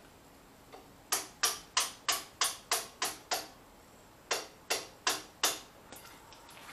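Hammer striking steel at the bucket pivot of a Diggit EM15 mini excavator, where loose bushings are being driven into place. Eight sharp, ringing blows about three a second, a short pause, then four more.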